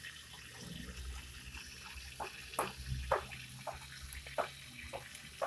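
Scattered light clicks and knocks from the plastic parts of a pressure washer being handled, over a faint steady background.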